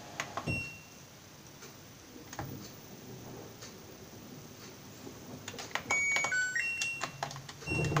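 Front-loading washing machine mid-wash: the drum rests with soft clicks and faint sloshing, a few short electronic beeps at different pitches sound about six to seven seconds in, and the drum motor starts up with a loud steady hum near the end.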